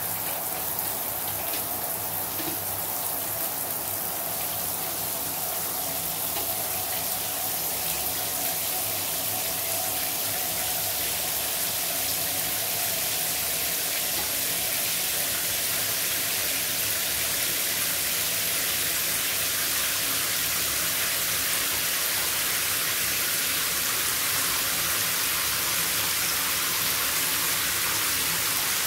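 Handheld shower head spraying water into a whirlpool bathtub as the bath fills: a steady rush of running water. It grows brighter and more hissy over the first ten seconds or so, then holds even.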